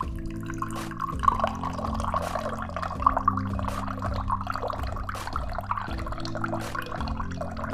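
Juice from a hand-squeezed orange trickling and dripping into a glass, with small splashes as the stream hits the juice already inside.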